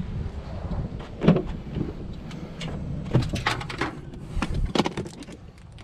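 Pickup truck door and plastic tackle boxes being handled on the back seat: a string of sharp clicks and knocks.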